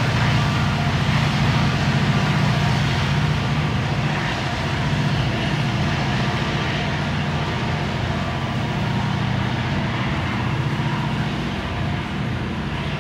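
Engine running steadily at a constant speed: a low, even drone with a regular pulse and a faint steady hum above it, holding unchanged throughout.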